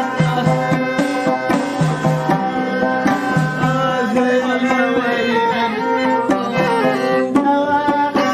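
Traditional Amazigh music: a gliding melody line over a steady drum beat.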